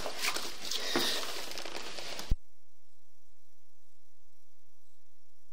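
Hiss with faint rustling handling noise, broken off by a sharp click about two seconds in. After the click only a steady electrical mains hum remains.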